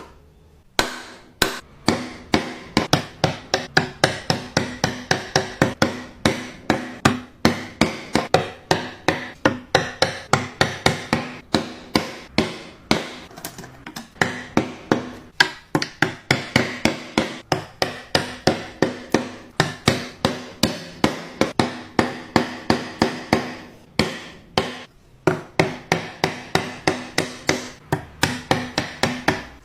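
Rapid, even striking blows, about three a second, each with a short ringing tone, with two brief pauses.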